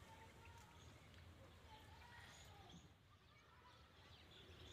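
Near silence: faint outdoor ambience with a steady low hum and scattered faint bird chirps.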